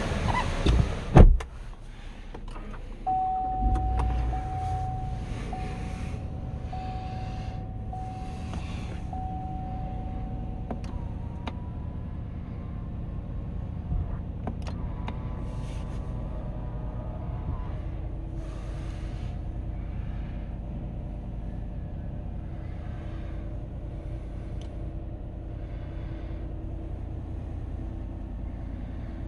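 A door of a new Chevrolet Silverado High Country pickup shuts with a loud knock about a second in. About three seconds in the engine starts with a short low rumble, then idles steadily, heard from inside the cab. A steady tone sounds for several seconds after the start.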